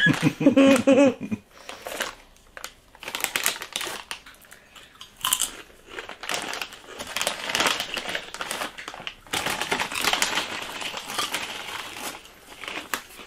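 Chip bag of green onion Bugles crinkling and rustling as it is pulled open and handled, with irregular bursts of crackling as hands reach in for the chips.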